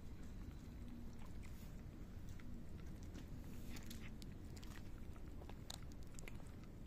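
Cats eating dry kibble from a bowl: many small, irregular crunches and clicks of chewing over a low steady rumble.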